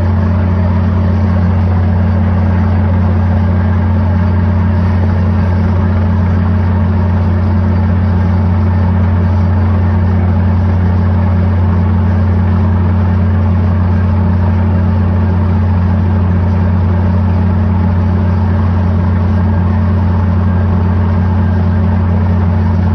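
Borewell drilling rig running steadily: a loud, unbroken low engine drone.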